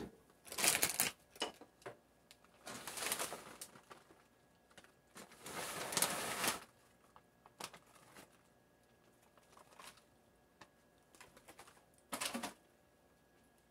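Plastic bag of shredded cheddar cheese crinkling and rustling in several bursts as the cheese is shaken out into a pot of cheese sauce, the longest lasting about a second and a half. Between the bursts there are a few light taps of a wooden spoon in the pot.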